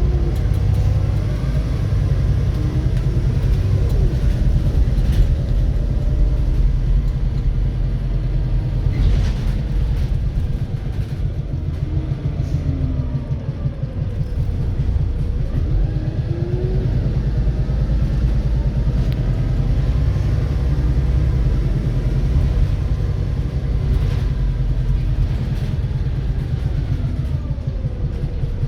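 Volvo B7RLE bus's six-cylinder diesel engine running under way: a heavy low rumble with a rapid knocking pulse. Its pitch rises and falls several times as it pulls away and changes gear, with a couple of sharp clicks along the way.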